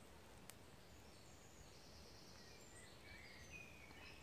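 Near silence, with faint birdsong: short high chirps and warbling phrases from about a second in.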